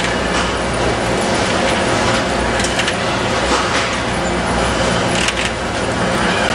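Factory machinery of a muffin production line with a robotic pin depanner running: a steady, dense mechanical noise over a low hum, broken by several short hisses.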